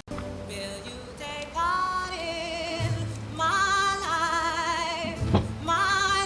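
Background music: a song with a sung or synth melody line wavering in vibrato.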